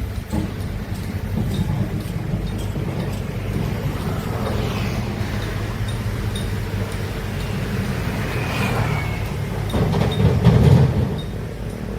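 Large hydraulic excavator's diesel engine running under load, with two short high squeals from the working machinery. The engine swells louder about ten seconds in, then eases.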